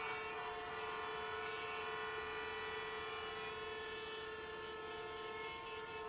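Fairly quiet, steady street-traffic background at a roadside bus stop, with a constant droning tone of several pitches that holds unchanged throughout.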